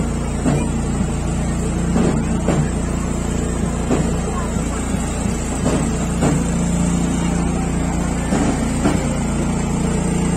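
A steady engine hum with people talking, and a few short knocks scattered through.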